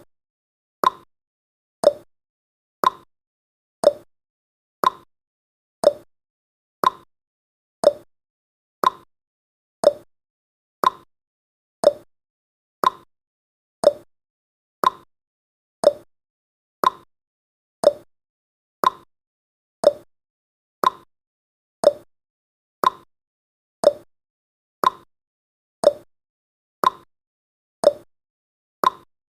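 Clock ticking sound effect for a countdown timer: one short, sharp tick about every second, evenly paced, with silence between ticks.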